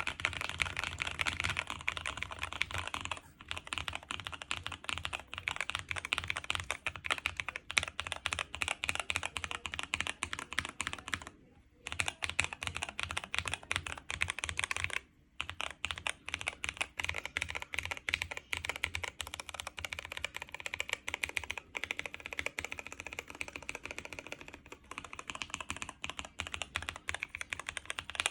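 Fast typing on a custom KBD Blade60 60% mechanical keyboard with lubed Kiwi switches, Durock V2 stabilizers, a tape-modded PCB and dye-sublimated PBT keycaps: a continuous stream of keystroke clacks, with two brief pauses about midway, stopping suddenly at the end.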